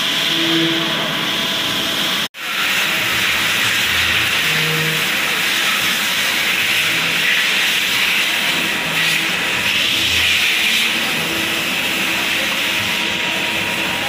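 Steady hissing machine-shop noise from CNC lathes running on the shop floor. It breaks off for an instant about two seconds in.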